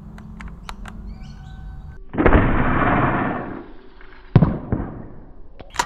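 Nerf sniper blaster (ZWQ S100) firing a dart about two seconds in: a sudden burst of noise that dies away over a second or so. About two seconds later comes a single sharp knock.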